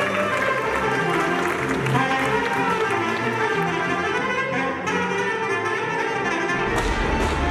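Clarinet playing a Romanian folk tune, with violins and a low bass line accompanying. A heavier low beat comes in near the end.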